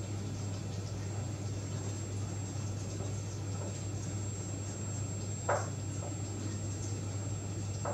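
Steady low hum and hiss of a lit gas hob in a kitchen while a thick sugar and condensed-milk mixture is stirred in a steel pan, with one short, sharp sound about five and a half seconds in.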